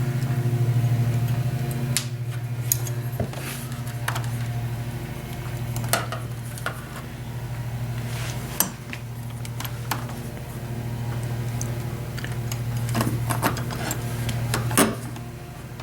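Metal parts of a keyless deadbolt clicking and clinking as they are handled and fitted into the door: scattered light taps, with the loudest knock near the end, over a steady low hum.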